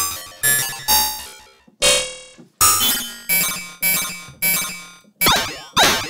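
Short synthesized glitch hits played one after another on the iZotope Iris 2 sample-based synth, scanning through a recorded glitch sound file. Each hit starts suddenly and dies away within about half a second, about two a second. From about five seconds in, the hits carry quick sweeping pitch glides.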